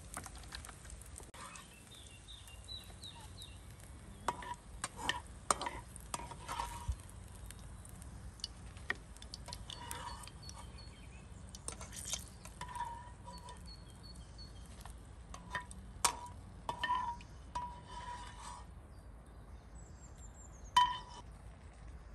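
Utensils clinking and scraping against cookware as food is stirred and handled, an irregular series of sharp clinks with a short ring, the loudest near the end.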